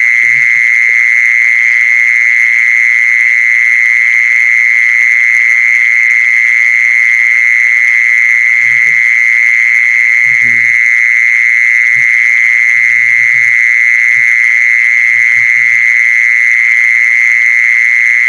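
A loud, continuous high-pitched trill, a rapid even pulsing on one pitch that holds steady throughout, typical of a calling animal. Faint low sounds come through now and then.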